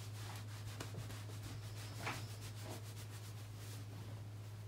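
A cloth towel rubbed over a person's hair in soft, irregular strokes, over a low steady hum.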